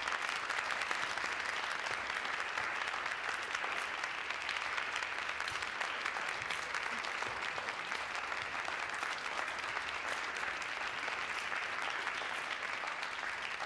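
An audience applauding steadily: many people clapping at once.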